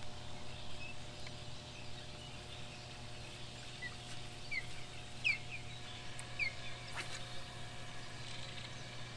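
Birds calling with a handful of short chirps near the middle, over a steady low hum, with a single sharp click about seven seconds in.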